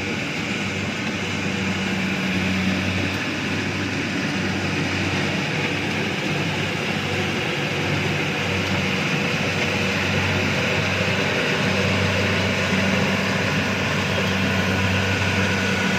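Rice combine harvester running steadily, its engine making a constant low hum under the whir of the machinery.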